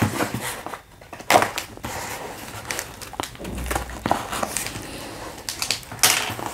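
Utility knife cutting through packing tape along a cardboard box's seam, with irregular scratching and crinkling as the tape is slit and peeled back, and a couple of sharper scrapes about a second in and near the end.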